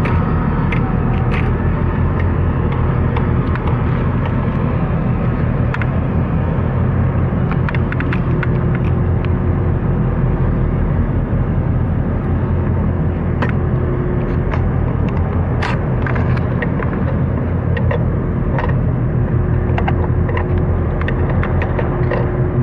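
A boat's diesel engine running steadily, a continuous low rumble, with scattered small clicks and splashes above it.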